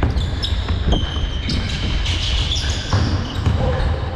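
A basketball bouncing on a court during a game, a few thuds over a constant low rumble, with short high-pitched squeaks in between.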